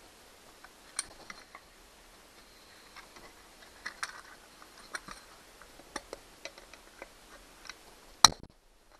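Small scattered clicks, taps and rustles of hands and a small tool working the wiring loose from a metal table-lamp base, with one sharp knock near the end.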